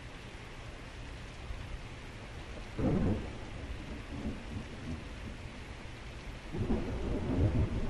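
Steady heavy rain with deep thunder: a sudden clap about three seconds in that fades off, then a longer rolling peal building near the end.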